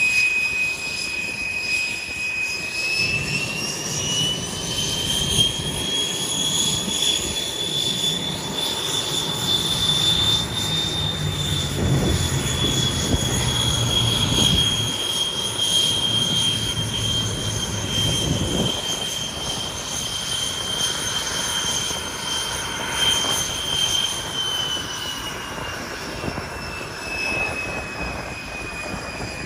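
Aero L-29 Delfín jet trainer's turbojet whining as it taxis. The high whine rises in pitch a few seconds in, holds, and falls back near the end, over a low rumble.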